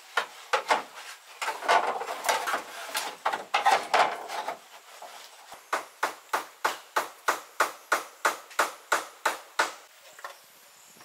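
Repeated sharp knocks on wood. They come thick and irregular at first, then after a short pause as a steady run of about three strikes a second that stops a little over a second before the end.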